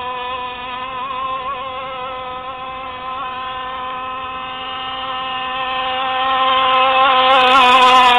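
Two-stroke CY 26cc petrol engine of a radio-controlled rigger boat running flat out, a steady high buzz that wavers a little. It grows louder from about five seconds in as the boat runs closer.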